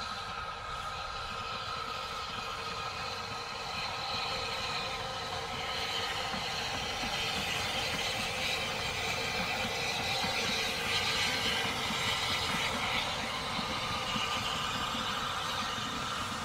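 Replica two-foot-gauge steam tank engine, Southern 762 'Lyn', running past with its four coaches, the steam locomotive and the rumble of the carriages on the rails growing louder from about four seconds in as the train draws level.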